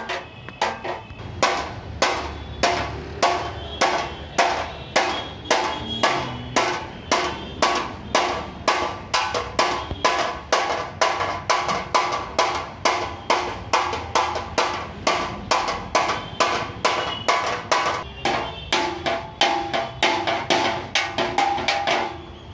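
Hammer blows on a Mahindra Bolero's dented metal front bumper, beating the dent out: steady, even strikes about two a second, starting about a second and a half in, each leaving a metallic ring.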